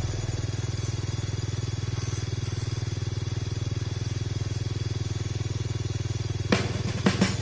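Small underbone motorcycle engine running steadily, with a few sharp knocks near the end.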